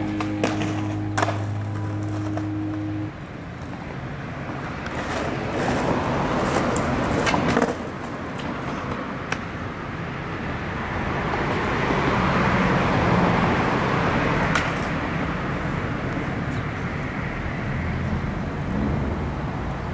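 Music that stops about three seconds in, then a skateboard's wheels rolling on concrete, with several sharp clacks of the board scattered through the rest.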